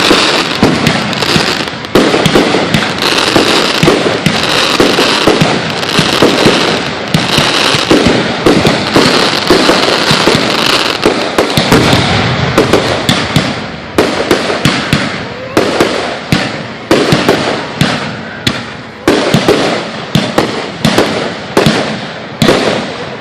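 Aerial fireworks display at close range: a dense barrage of bursting shells and crackle, easing after about 14 seconds into separate booms a little under a second apart.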